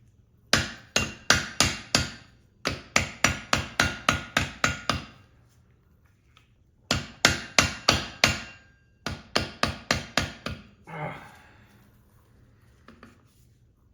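Hammer blows driving a tight-fitting replacement planetary gear (clutch) assembly onto an e-bike hub motor, in four quick runs of strikes about three or four a second, each with a short metallic ring. The gear will only go partway in, so it has to be beaten into place.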